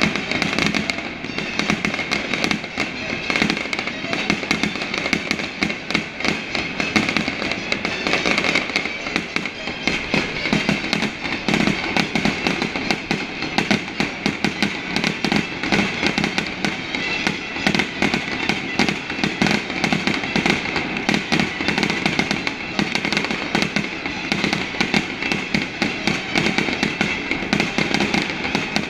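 Fireworks display going off: a dense, unbroken run of rapid bangs and crackles.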